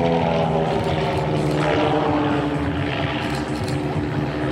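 A pair of propeller-driven aerobatic planes' piston engines droning overhead in formation flight. The engine pitch eases slowly downward.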